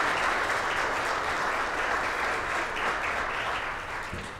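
Audience applauding, fading away near the end.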